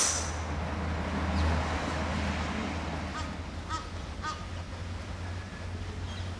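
The fading ring of a golf club's impact with the ball at the very start, over steady outdoor rumble. A few seconds in, a bird calls three short times, about half a second apart.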